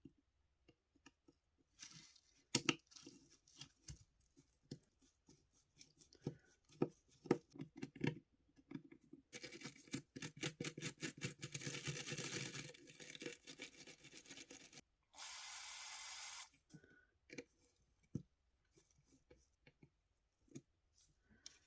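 Close-up hand work on a small die-cast model car: scattered clicks and scrapes, then a rapid run of scraping strokes about nine seconds in, and a steady hiss lasting about a second and a half shortly after.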